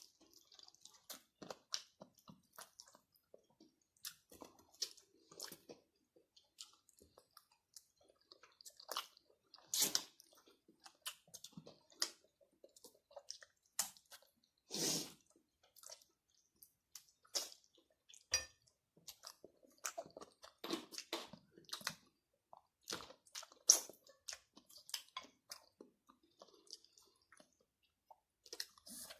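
Close-up chewing and eating sounds: many short, irregular mouth clicks and smacks of someone eating, with one longer, louder sound about halfway through.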